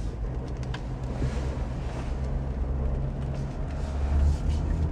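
2004 Chevy Avalanche's 5.3-litre V8 and drivetrain running as the truck drives, heard from inside the cab: a steady low drone that swells slightly about four seconds in. No strong power-steering whine stands out.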